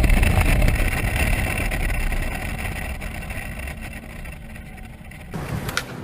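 Motorcycle running at highway speed, heard from a helmet-mounted camera as engine rumble mixed with wind rush on the microphone, growing quieter over several seconds. It cuts off suddenly about five seconds in, followed by a sharp knock near the end.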